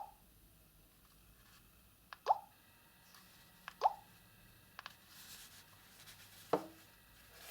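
Nokia 215 4G feature phone keypad tones: four short blips, each a click with a brief tone, at uneven intervals as keys are pressed, with a fainter one about five seconds in.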